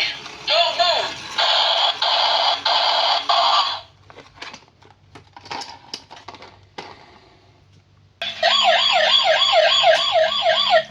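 Electronic toy siren sound effect, a loud warbling wail rising and falling about three times a second, then a steady buzzing tone. It breaks off about four seconds in for a few seconds of quiet plastic clicks and rattles, and starts again about eight seconds in.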